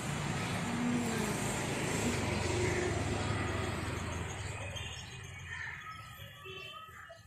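Low rumble and hiss of a passing motor vehicle, fading away after about five seconds.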